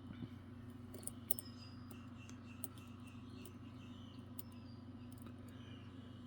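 Faint scattered clicks and ticks of a dimple pick working the pins of a Godrej Scorpio dimple lock under tension, with a sharper click about a second in, over a steady low hum.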